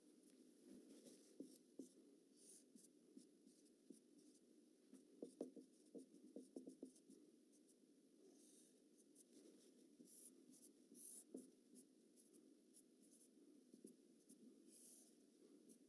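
Faint, irregular squeaks and scratches of a marker pen drawing curves on a board, with a few small clicks, over a low steady room hum.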